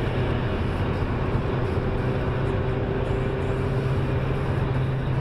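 Steady engine and tyre drone of a car cruising on a highway, heard from inside the cabin, with a constant low hum and road noise.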